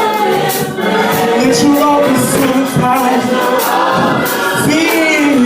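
Gospel choir singing with a live church band, drums and cymbals keeping a steady beat.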